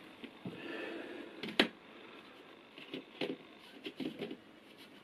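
Camera handling noise: a few sharp clicks and knocks, the loudest about a second and a half in, with a brief rustle of clothing against the camera.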